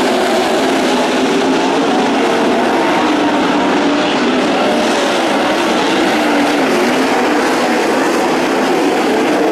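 Several 360 sprint car engines running hard in a race, a loud continuous drone with several engine pitches wavering up and down as the cars go around the track.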